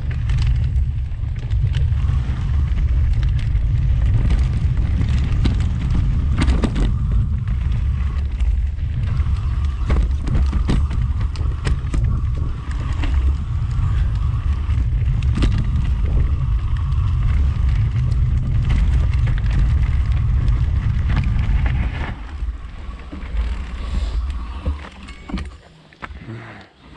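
Heavy wind and trail rumble on a camera riding a mountain bike down a dirt singletrack. Frequent rattles and knocks come from the bike jolting over bumps. The rumble fades about 22 seconds in as the bike slows.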